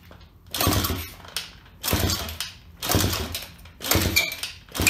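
SSR 110 pit bike's horizontal single-cylinder four-stroke engine being kick-started about five times, roughly a second apart, turning over but not catching. A short high squeak comes with the last kicks: compression escaping past the cylinder head, which turns out to be a blown head gasket rather than the exhaust gasket.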